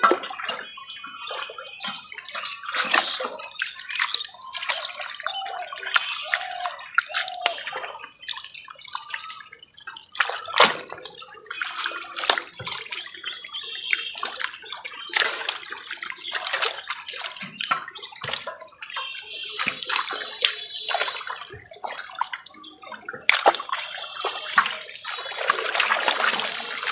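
Water splashing and sloshing in a shallow net crowded with live fish as hands work through them, in many short, irregular splashes.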